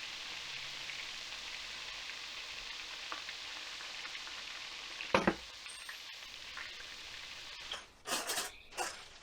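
Breaded fish and shrimp nuggets frying in oil, a steady sizzle. A loud clatter comes about five seconds in; the sizzle stops near the end, and a few more clatters follow.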